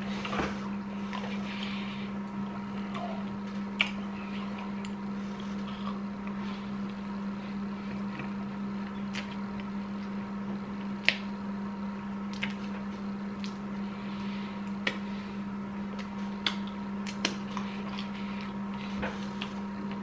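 Squelchy mouth sounds of chewing sticky, melted marshmallow, with several sharp clicks of a metal spoon scattered through, over a steady low hum.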